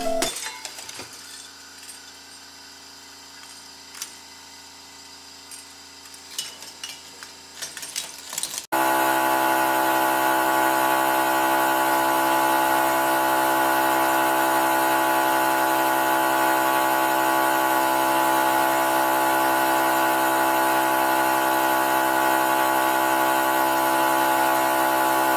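Hydraulic press's pump motor running with a steady whine as the ram lowers, starting suddenly about a third of the way in. Before it there are only faint scattered clicks.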